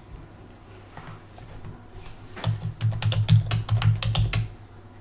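Computer keyboard typing: a quick run of keystrokes starting about halfway through, each with a light click and a dull thud.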